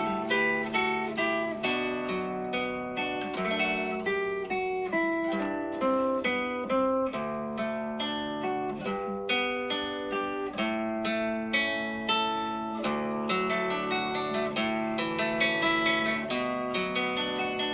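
Background music of a plucked acoustic guitar playing a steady run of picked notes and chords.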